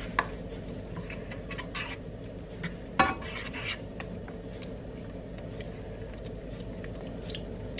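Plastic spatula stirring and scraping a cream sauce in a nonstick frying pan, with scattered light clicks and one sharper knock about three seconds in, over a steady low hum.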